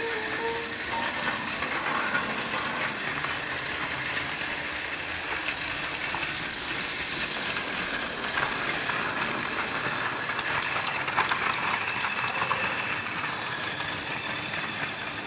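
Tomica CT2000 City Train, a battery-powered toy train, running steadily along plastic track: the whir of its small electric motor with the rattle of its wheels on the track.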